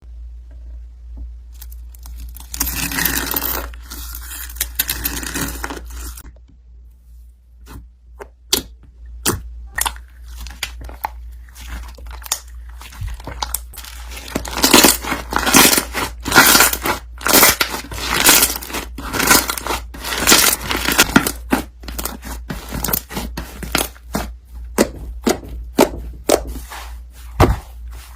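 Slime being kneaded and stretched by hand: a rustling, crackling stretch a few seconds in, then sharp sticky pops and clicks that start about eight seconds in and grow denser and louder from about fourteen seconds. A steady low hum runs underneath.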